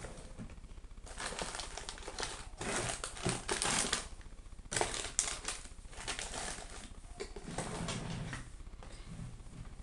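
Rustling, scraping handling noise with small clicks, in irregular bursts loudest about three to four seconds in, over a steady low electrical hum.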